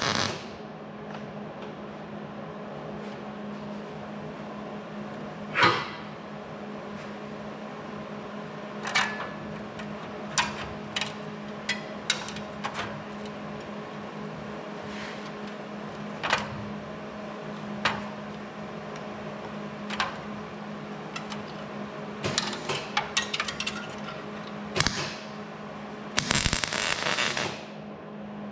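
Welder tack-welding sheet-metal patch panels: short crackling bursts and clicks scattered through, with a longer burst of crackle about a second and a half long near the end, over a steady low hum.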